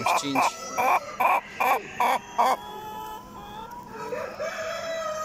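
A chicken clucking in a loud, even series of about two clucks a second, which stops about two and a half seconds in. Quieter drawn-out calls follow.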